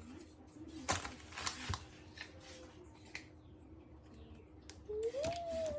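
A few faint knife taps and scrapes on a cutting board as vegetables are cut. A short hummed voice sound comes near the end.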